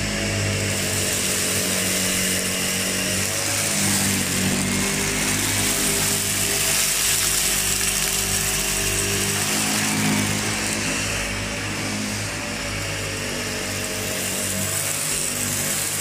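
SEBO Felix upright vacuum cleaner running at full suction with its roller brush on, pushed over carpet and sucking up piles of debris. The motor and airflow make a steady loud hiss and hum that shifts in pitch every few seconds as the load changes.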